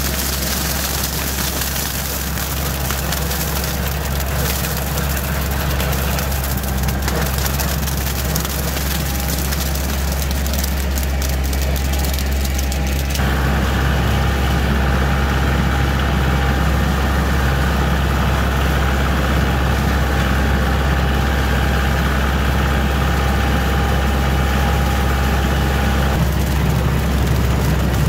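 Kioti tractor's diesel engine running steadily while working a dirt road with a rear implement. About halfway through, the sound jumps louder and closer, as heard from on the tractor.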